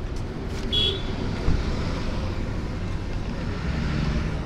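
City street traffic noise: cars and other vehicles running and passing, with a short high squeak just under a second in.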